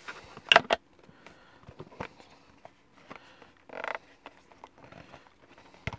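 Handling of a white cardboard packaging box as a smartphone clamp is taken out of it: a loud cluster of sharp clicks and taps about half a second in, a short rustle just before four seconds, and scattered light taps.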